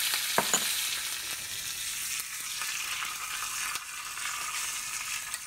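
Curry leaves sizzling in hot oil with mustard seeds and hing for a tadka (tempering): a steady frying hiss with small crackles that eases slightly toward the end.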